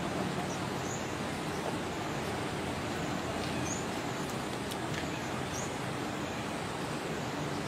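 Steady outdoor background noise, an even hiss and rumble, with a short high chirp repeating about every two seconds.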